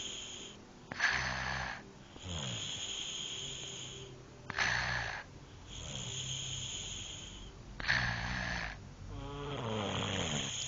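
Snoring in slow, regular breath cycles about three and a half seconds apart, each a short harsh sound followed by a longer hissing one.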